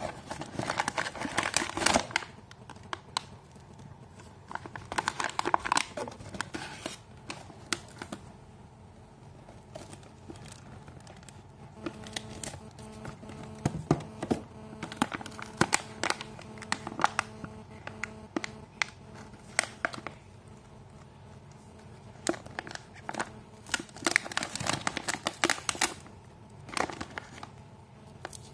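Crinkly plastic packets of hair rollers being handled and turned over, crackling in bursts of a second or two with quieter stretches between. Faint music plays in the background through the middle.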